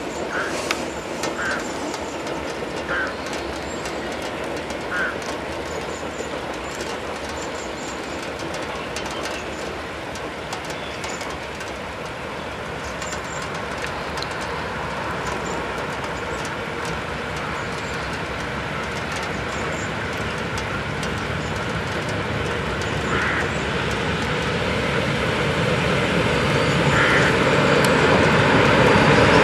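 Two class 15D diesel locomotives hauling a freight train approach in the rain, their engine rumble growing steadily louder over the last ten seconds. A steady hiss of rain runs under it.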